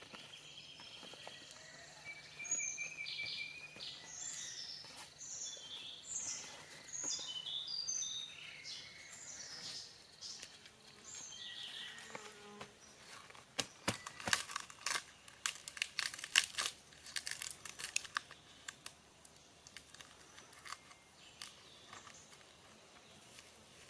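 Forest birds calling with short, high chirps and whistles through the first half. Then, from about halfway, a run of crisp crinkling and crackling as a banana leaf is folded and pushed into the mouth of a green bamboo tube to stop it, fading to a few soft rustles.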